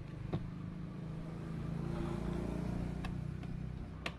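A motor vehicle's engine running with a steady low hum that swells a little mid-way and eases off, with two small plastic clicks from handling the RC truck.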